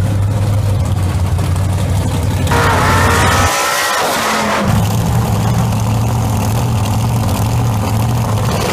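Drag-racing first-generation Chevrolet Camaros' V8 engines held at high revs through burnouts, a loud steady drone as the rear tyres spin. The sound changes abruptly about two and a half seconds in, thins briefly near four seconds, then settles into another steady high-rev burnout.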